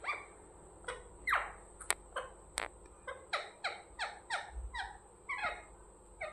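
Parrot chirping: a rapid series of short calls, each sliding down in pitch, about two a second, with a couple of sharp clicks among them about two seconds in.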